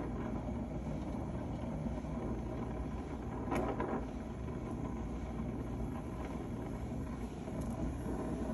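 Brazing torch flame burning steadily as it heats a copper refrigerant line joint at the compressor, with one brief louder sound about three and a half seconds in.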